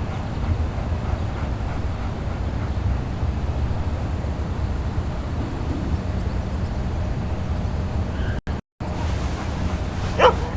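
Steady low rumble of wind on the microphone, which cuts out for a moment about eight and a half seconds in. Near the end a dog gives a short whimper.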